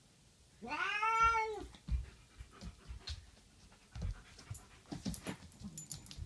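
A cat gives one long yowl about a second in, rising then falling in pitch, warning a puppy off the food it is eating. Light clicks and taps follow as the puppy moves about on the wooden floor.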